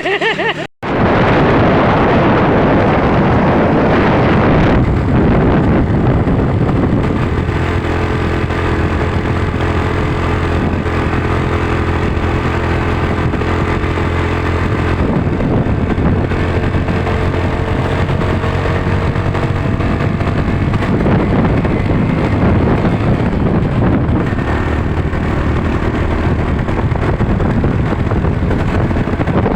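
Motor vehicle travelling on the road: a steady engine hum under road and wind noise.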